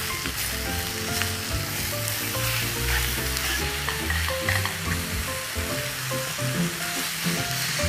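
Tiger prawns sizzling steadily in a lightly oiled non-stick grill pan, with light clicks as they are turned over.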